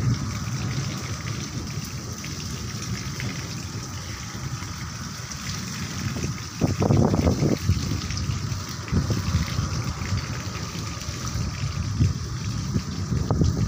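Rain falling steadily, with two short, louder low rumbles: one about seven seconds in and another near the end.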